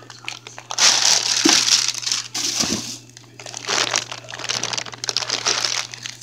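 Packaging crinkling and rustling as it is handled and cut open, in three loud stretches with short pauses between them.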